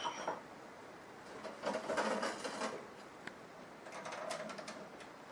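Stainless steel stove parts rattling and clinking against each other and the steel stove body as they are handled and lifted out, in two spells of clatter.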